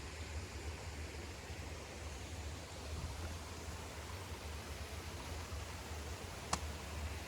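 Steady outdoor background hiss with a low rumble, like wind on the microphone or running water, and a single sharp click about six and a half seconds in.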